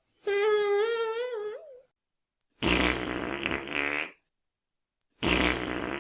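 Fart sound effects played one after another with dead silence between them: first a wavering, tooting tone lasting about a second and a half, then the same longer, sputtering fart twice.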